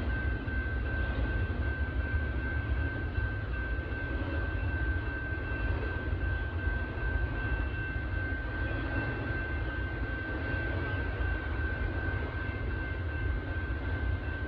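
Norfolk Southern intermodal freight train rolling past: a steady low rumble of the cars on the rails, with a thin, steady high whine over it.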